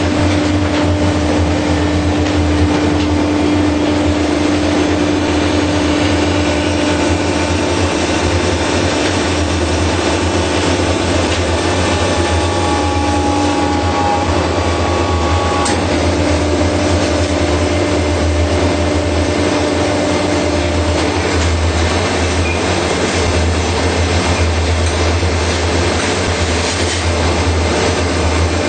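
Automatic baler machine running steadily, with a deep hum and whining tones. A short click comes about 16 seconds in, and the higher whine stops there.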